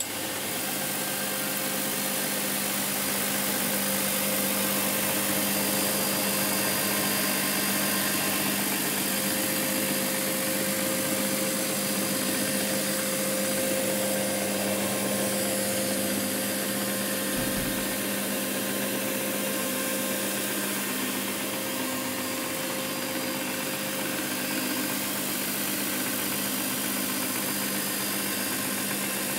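Walk-behind encapsulation carpet-cleaning machine running on carpet, a steady motor hum under a constant hiss. A brief low thump sounds about two-thirds of the way through.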